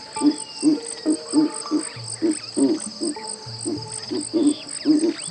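Night-time nature ambience: crickets or similar insects chirring steadily in a high, fast-pulsing trill, over short low croaking calls, frog-like, repeating a few times a second.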